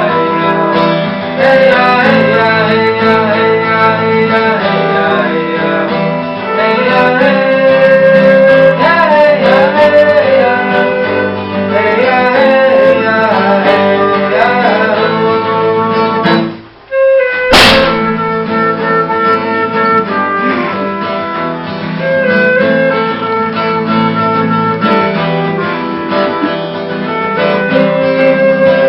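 Live acoustic music on guitar and violin. About two-thirds of the way through, the music breaks off for a moment and a door slams shut, blown by the wind, in a single loud bang.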